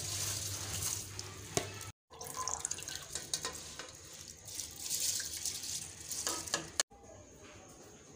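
Water sloshing and trickling as basmati rice is rinsed in a bowl and then drained through a steel sieve. The sound breaks off abruptly twice and is quieter near the end.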